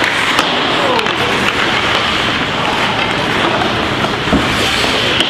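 Steady crowd noise in an ice rink: spectators shouting and cheering, with no single voice standing out.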